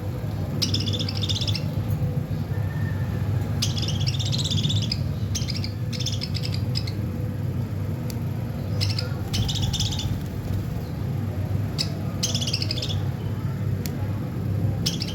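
Budgerigars chirping in short bursts of chatter, about eight in all with pauses between, over a steady low hum.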